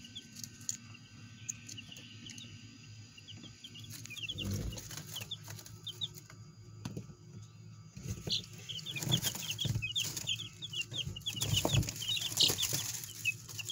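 A brood of week-old Easter Egger chicks peeping: short high peeps, a few at first and then coming thick and fast in the second half. A few bumps and rustles from the plastic tub being handled.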